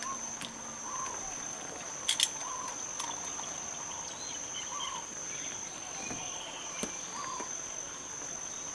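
Steady high-pitched drone of insects, with a short lower call recurring every second or so. Two sharp clicks about two seconds in are the loudest sounds.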